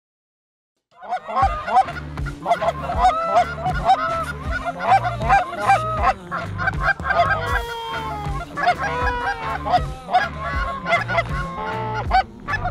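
Canada goose honking and clucking in a fast, continuous run of calls, starting about a second in after silence.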